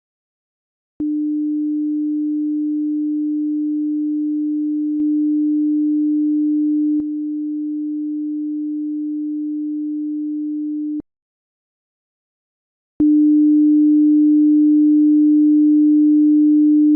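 Steady single-pitch sine test tone from a 5.1 surround channel check. It starts about a second in, steps up and then down in level about four and six seconds in, stops for about two seconds, then comes back louder.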